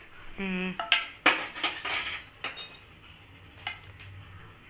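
A spoon clinking and tapping against kitchen vessels as herbal powder is spooned out and added to a pot of heating water: a quick run of clinks over the first few seconds, then one more later.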